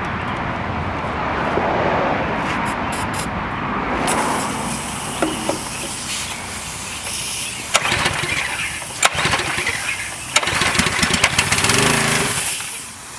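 Briggs & Stratton 6.75 small engine on a pressure washer running roughly on gas and Seafoam fed to the carburetor, with scattered sharp pops, and fading out near the end as it dies. It runs and dies from fuel starvation, which the owner puts down to a clogged carburetor.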